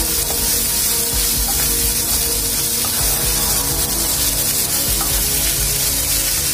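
Chopped onions sizzling as they fry in butter and oil in a kadai, stirred with a wooden spatula, with background music playing along.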